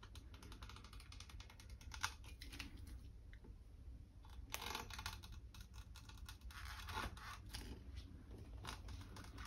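Utility knife cutting through the PVC outer wrap and the visco-elastic Stopaq coating on a steel pipe: faint, irregular scratching and clicking, with a sharper click about two seconds in and louder scrapes around four and a half and seven seconds in.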